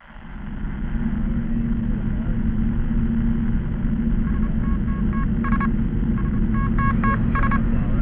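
Steady, muffled low rumble with a hum, joined from about halfway through by groups of short electronic beeps in a few pitches.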